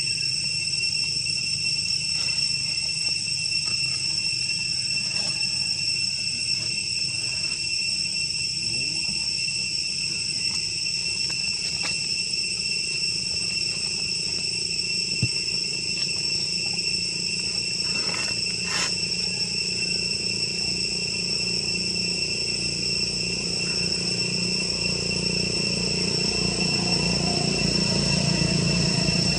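Steady, high-pitched drone of insects calling without a break, with a few faint clicks about two-thirds of the way through and a low rumble building near the end.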